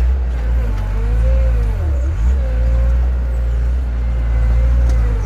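Heavy machine's engine running under load while pulling out a cedar tree: a steady low hum with a whine above it that wavers in pitch and dips about two seconds in and again near the end.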